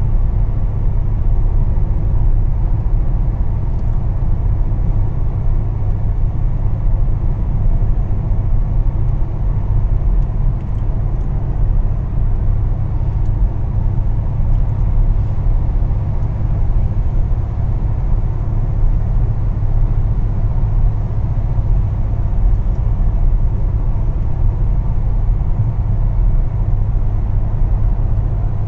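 Steady low rumble of a car in motion, with its road and engine noise unbroken throughout.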